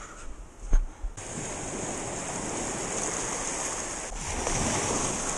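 Ocean surf washing onto the beach in a steady rush that swells a little near the end. A single sharp knock comes just before it, less than a second in.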